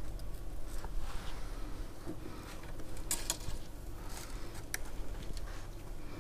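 Faint handling of beading wire and glass beads: scattered small clicks and light rustling, with a few sharper clicks in the second half, over a low steady hum.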